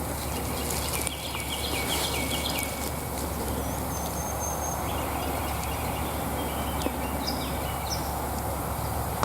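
Outdoor morning ambience: a steady background hiss with small songbirds chirping and trilling several times.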